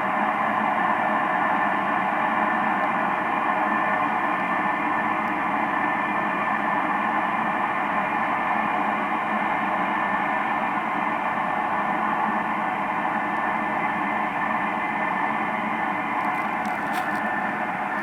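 Steady droning hum from the night sky, a dense even rushing with many faint overlapping steady tones and no change in pitch or level. A few faint ticks come near the end.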